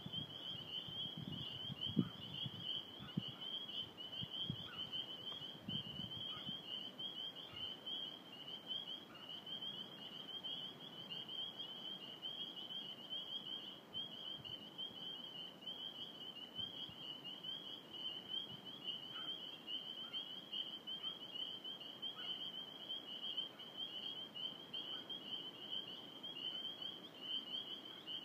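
Dense chorus of spring peepers: many frogs peeping at once, high calls overlapping into one unbroken ringing sound. A few low thumps come in the first few seconds.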